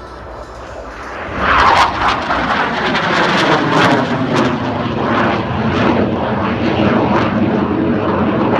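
Twin-turbofan jet noise of an M-346 Master trainer flying past: it rises sharply about a second in and stays loud, with a whine that falls steadily in pitch as the jet passes.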